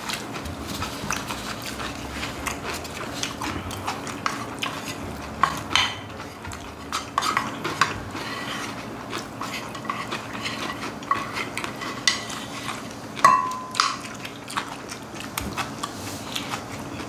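Spoons scraping and clinking against bowls as two people scoop up the last of their bibimbap, many short irregular scrapes and taps, with one clearer ringing clink about thirteen seconds in. A faint steady hum runs underneath.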